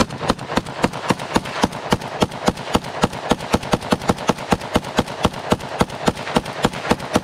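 Palmetto State Armory PSA-74 semi-automatic AK rifle in 5.45x39 firing a fast, unbroken string of shots, about four a second. The rounds ring and echo between shots. The repaired rifle cycles round after round with no stoppage.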